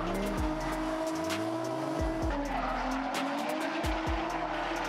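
Two drift cars sliding in tandem, engines revving up and down with tyres squealing. Background music with deep bass thumps plays over it.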